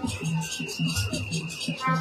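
Music with a steady beat; held chords drop out and come back in near the end.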